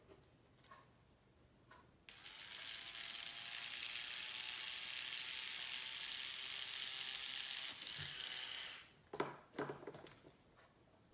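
A steady mechanical grinding noise starts suddenly about two seconds in and runs for about seven seconds, then stops and is followed by a few sharp knocks.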